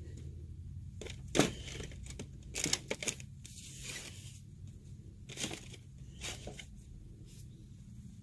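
Scattered crinkling rustles and sharp clicks of something being handled, loudest about a second and a half in and again around three seconds in, over a steady low hum.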